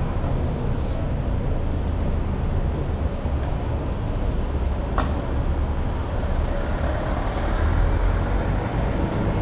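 Street traffic: a steady low rumble of passing vehicles, with a short sharp click about five seconds in.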